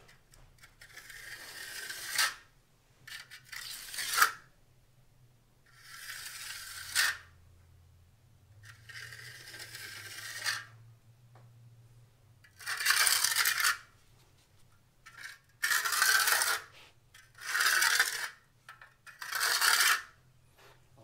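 Steel hand trowel scraping over wet concrete in a boat's fish-hold sump, about eight separate smoothing strokes with short pauses between them. The sharpest scrape comes about four seconds in.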